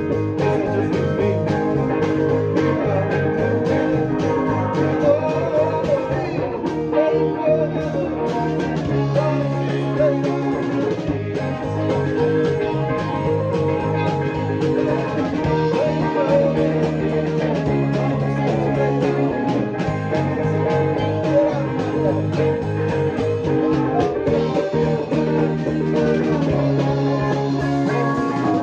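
Band playing a rock song, with an electric bass played fingerstyle carrying low notes that change every second or two.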